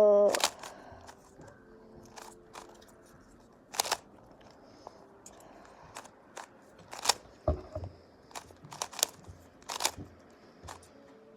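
Irregular sharp clicks of a magnetic GAN speedcube's layers being turned and snapping into place, one every second or so.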